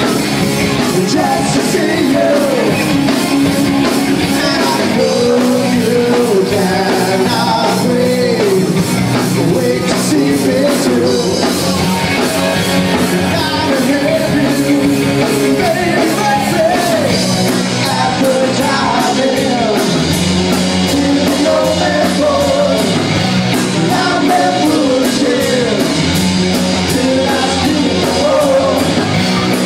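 Live band playing loud: a singer over electric guitars and a steady drum beat.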